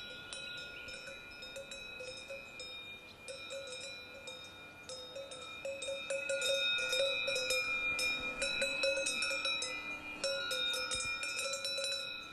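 Cowbells clanking and ringing, many metal clinks over a steady ring, growing louder about five seconds in.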